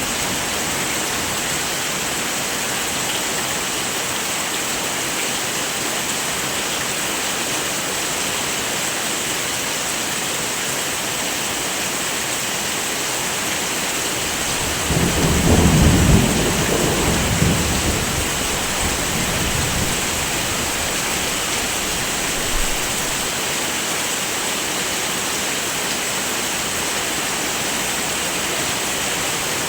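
Steady heavy rain falling, with a low roll of thunder about halfway through that swells and rumbles away over several seconds.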